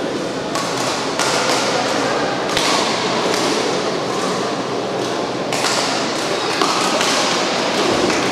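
Badminton rally: rackets striking the shuttlecock every second or so, over the steady din of a busy sports hall.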